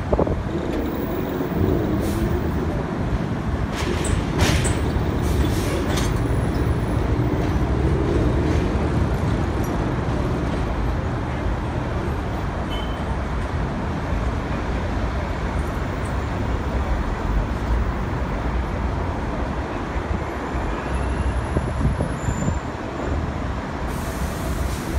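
New York City subway train on an elevated steel line pulling out and running away down the track: a steady rumble of wheels on rail, with a few short sharp clicks or hisses in the first several seconds.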